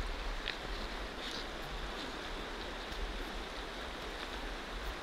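Steady rush of a shallow river running over stones, with a low, uneven rumble underneath.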